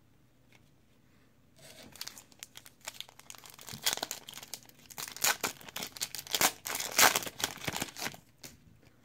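Plastic trading-card pack wrapper being torn open and crinkled, starting about a second and a half in and going on for several seconds, loudest in the middle.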